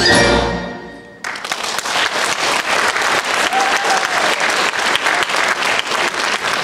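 The last chord of a march played by xylophone, snare drum and a small orchestra rings and dies away, and about a second in, audience applause breaks out suddenly and keeps going steadily.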